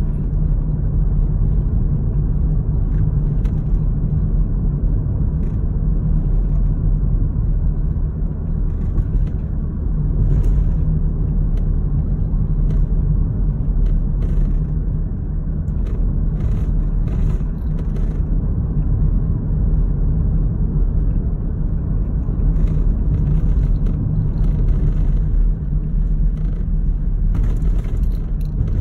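Car driving at steady speed, heard inside the cabin: a continuous low rumble of road and tyre noise, with scattered faint ticks.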